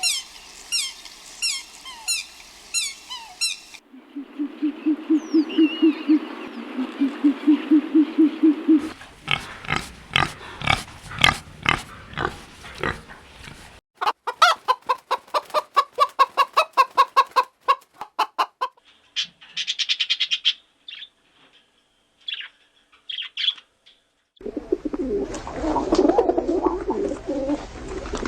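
A string of short farm-animal recordings cut one after another. First comes a run of fast, high, falling chirps. Then a low pulsing call repeats several times a second, followed by quick rhythmic clicking and clucking calls, a few scattered high calls, and near the end a rougher, noisier stretch of low calls.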